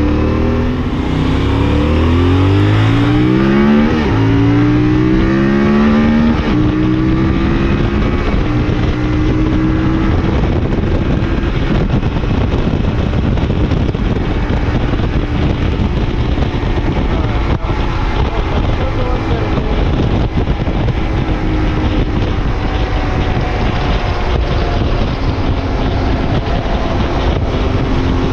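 Motorcycle engine accelerating through several gears, its pitch climbing and dropping back at each shift over the first several seconds, then heavy wind noise on a helmet-mounted boom microphone at speed, with the engine running steady underneath.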